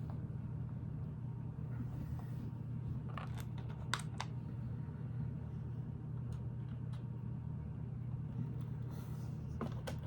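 A few light clicks of plastic Lego pieces being handled and pressed together, in two small clusters, over a steady low hum.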